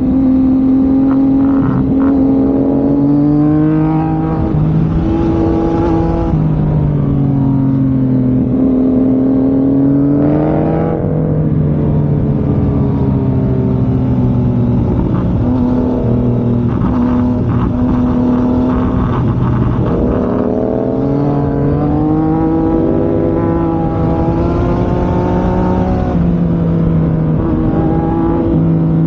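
Motorcycle engine under way, its revs rising and falling again and again with throttle and gear changes, over steady wind rush.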